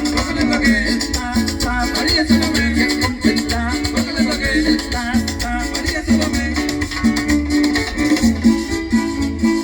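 Chanchona band playing live: a violin melody over plucked strings and a low bass, with a shaker keeping a steady beat.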